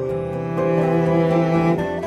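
Background music with long held bowed-string notes, cello-like, in a slow melody.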